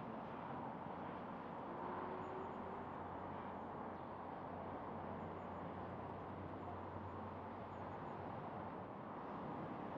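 LMS Royal Scot class 4-6-0 steam locomotive working hard, heard from a distance: its exhaust blurs into a steady, muffled rumble over the background noise of a valley town.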